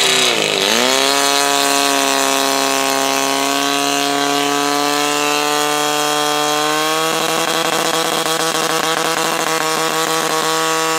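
Portable fire pump engine running flat out, a steady high-revving whine. Its pitch dips just after the start as it takes up the load, then climbs and holds. About seven seconds in it drops a little and turns rougher while it drives water out through the hoses to the nozzles.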